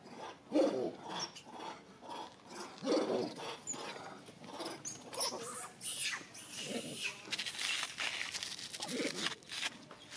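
Short animal calls repeating about every two seconds, with a noisier stretch of scuffing in the middle.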